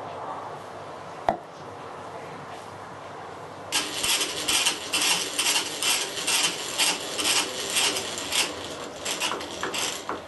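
Rhythmic back-and-forth strokes of a hand tool working pallet wood, about two a second, starting a little over a third of the way in. Before the strokes there is a single sharp knock about a second in.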